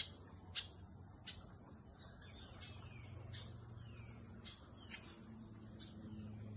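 A steady, high-pitched chorus of insects droning without a break, with a few short falling bird calls and scattered sharp clicks over it.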